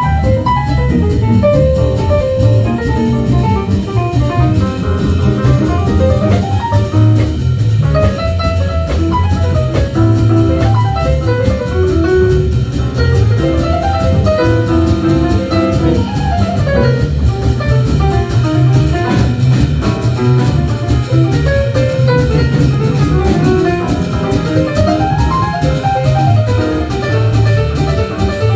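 A live jazz band playing, with drum kit and bass underneath and a lead instrument running quick phrases of notes up and down.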